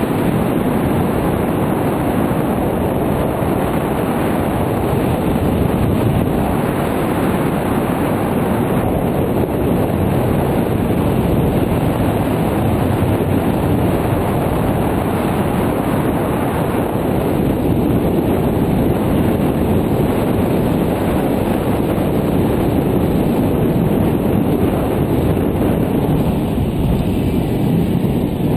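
Steady wind rushing over the microphone of a GoPro Hero 2 in an open housing while gliding under a paraglider, a loud, even rumble with no let-up.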